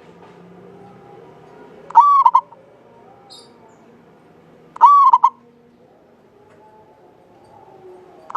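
Zebra dove (local Javanese perkutut) cooing its song twice, about three seconds apart: each phrase is a short held coo followed by a few quick notes, and a third phrase begins near the end.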